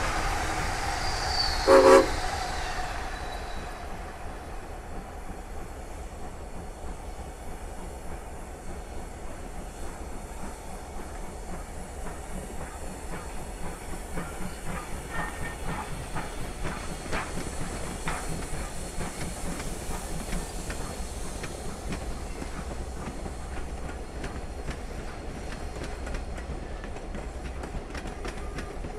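Strasburg Rail Road steam train passing: a short whistle toot about two seconds in, the loudest sound, then its wooden passenger coaches roll by with a steady rumble and the clickety-clack of wheels over rail joints, the clicks coming thicker in the second half.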